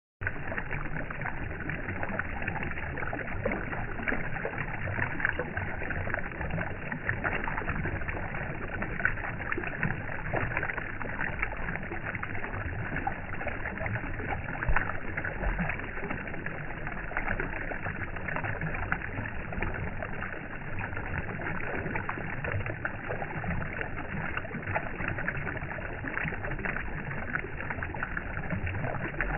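Steady, unbroken rushing noise with a fine crackle throughout, at an even level.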